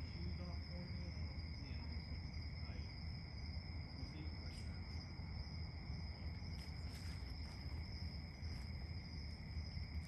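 Night insects, crickets, chirring as a steady, unbroken trill at two high pitches, over a low steady hum.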